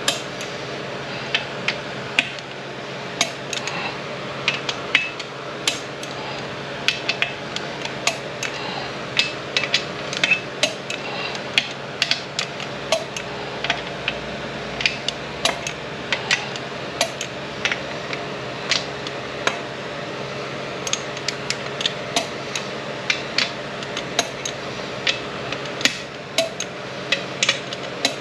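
Metal transmission parts and hand tools clinking and tapping against each other on a workbench: many sharp, irregular clicks, about two or three a second, over a steady low hum.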